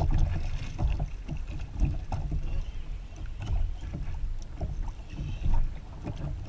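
Water slapping and knocking irregularly against a plastic fishing kayak's hull, with low wind rumble on the microphone.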